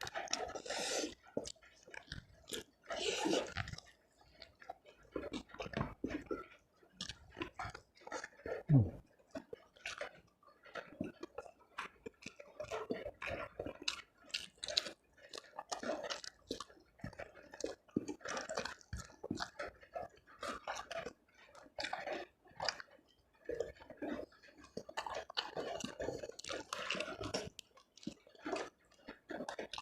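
A person chewing food close to the microphone, with irregular wet smacks, bites and some crunching. There is a brief low thump about nine seconds in.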